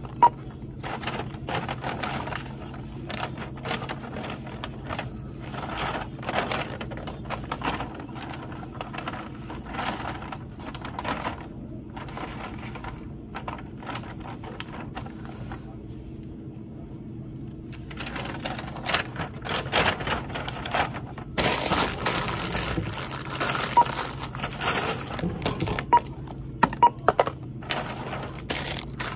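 Checkout counter sounds: items being handled and set down with clicks and knocks, a barcode scanner giving a few short beeps, and a paper bag rustling and crinkling as the items are packed, busiest in the last third.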